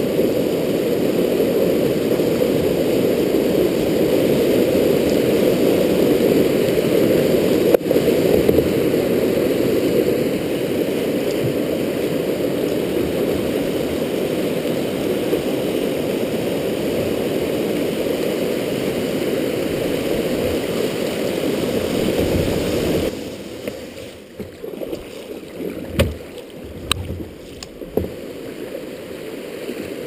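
Loud, steady rush of flood-swollen river rapids churning around a kayak. About 23 seconds in it drops suddenly to a quieter flow of calmer water, with a few sharp knocks.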